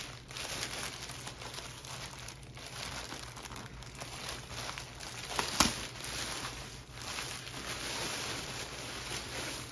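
Plastic mailer bag crinkling and rustling as it is handled and pulled open, with one sharp, louder crackle about five and a half seconds in.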